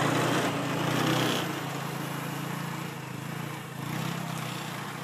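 Small engine of a ride-on farm vehicle running steadily as it drives along, a little louder for the first second or so and then easing.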